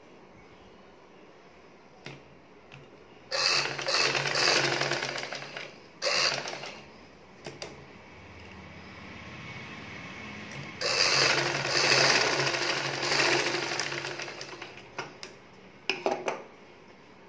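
Vidya sewing machine stitching fabric in bursts. There is a run of about two and a half seconds starting about three seconds in, then a short burst. A longer run of about four seconds starts near eleven seconds, and a brief burst comes near the end, with small clicks of fabric handling between the runs.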